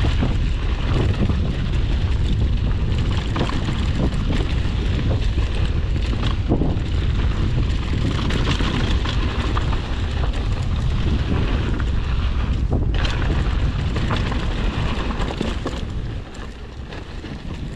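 Mountain bike descending a dry dirt trail at speed: steady wind rumble on the microphone and tyre noise over loose dirt, with short knocks and rattles from the bike over bumps. It gets a little quieter near the end.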